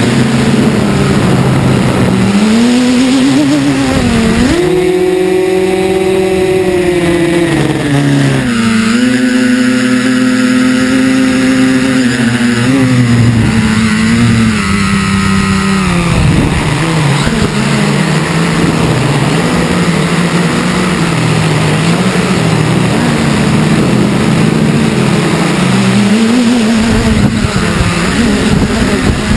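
Multirotor drone's electric motors and propellers whining, heard from the camera riding on the drone. The pitch climbs about four seconds in, steps down at about eight seconds and again near sixteen, then wavers lower with the throttle.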